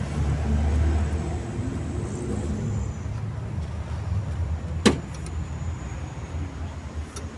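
Low steady rumble inside a truck cab, with a sharp knock about five seconds in and another near the end.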